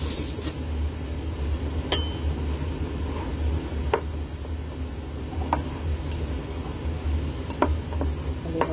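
Wooden chopsticks stirring rice and raw egg yolk in a ceramic bowl, clicking sharply against the bowl now and then, about five times, over a steady low hum.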